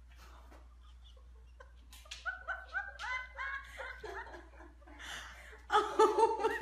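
A person laughing in quick repeated pitched bursts, getting much louder near the end, after a couple of seconds with only a few faint clicks.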